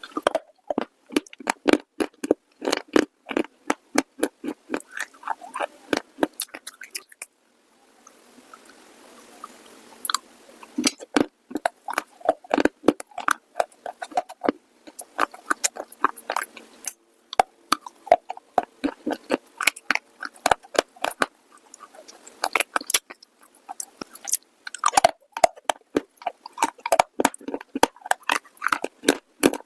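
Close-miked crunching and chewing of hard, brittle pieces in the mouth: quick runs of sharp crunches, with a brief pause about seven seconds in.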